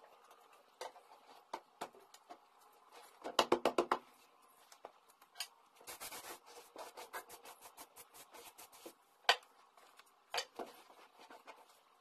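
Sofa cushions being handled and patted into shape: scattered soft knocks and rustles, with a quick run of about six pats about three seconds in and a sharp knock later on.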